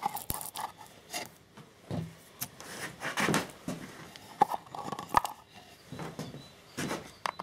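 Handling noises: scattered light clicks and rubbing of the opened lithium-ion battery pack and its cells being moved about on a wooden workbench.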